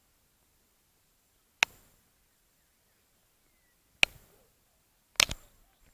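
Three sharp cracks or knocks, about a second and a half to two and a half seconds apart, the last one doubled, with near silence between them.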